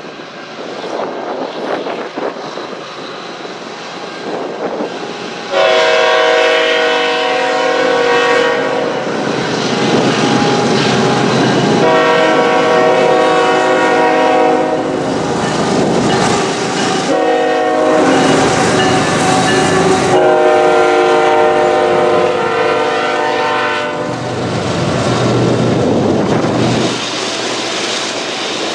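CN freight train led by GE ES44AC locomotives sounding a multi-chime air horn in about four long blasts. The steady rumble and wheel clatter of the freight cars rolling past follow.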